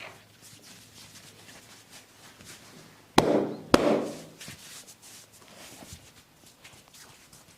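Two sharp cracks a little over half a second apart, from a barber's head-and-neck massage, with faint rubbing and light tapping before and after.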